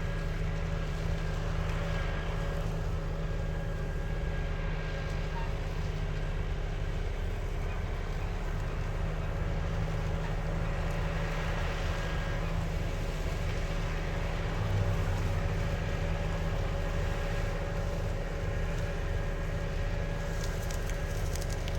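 Tractor running steadily, its transmission giving off a steady gear whine over the engine's low drone.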